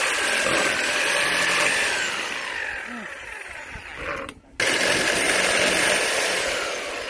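Handheld corded electric cutter cutting through an outdoor step mat. The motor runs for about four seconds, its pitch sinking as the blade works through the mat. It cuts out suddenly for a moment, then runs again for a few seconds.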